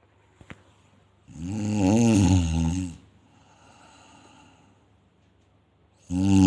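Snoring: two loud, wavering snores about five seconds apart, each lasting about a second and a half, with a softer breathy breath between them.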